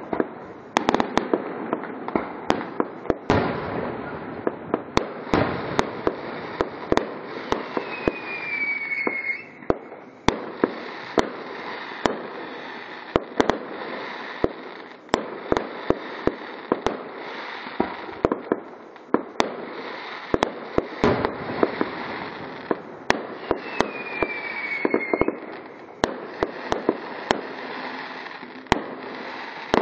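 Aerial fireworks display: an irregular string of sharp bangs from bursting shells over a continuous crackle. A short falling whistle comes twice, about eight seconds in and again past the middle.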